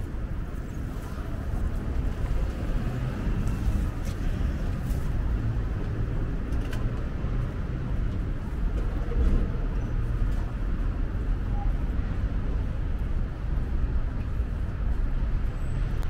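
Steady low rumble of road traffic on a busy multi-lane city street.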